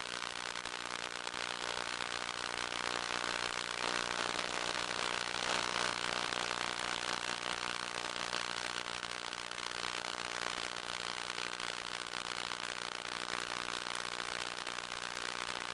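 Electric motor and propeller of an FPV model aircraft running steadily under power, a constant whine of several steady tones over rushing air noise.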